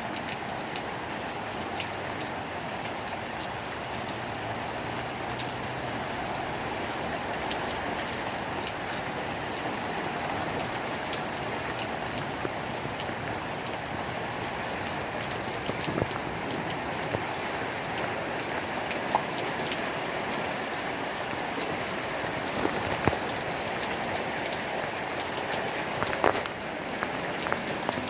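Heavy thunderstorm rain falling steadily, with scattered sharp ticks of drops striking a surface.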